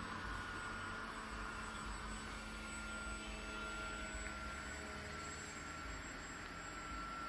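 Thin, steady whine of a radio-controlled model Avro Baby's motor and propeller in flight, its pitch wavering slightly, over a faint hiss of wind and background noise.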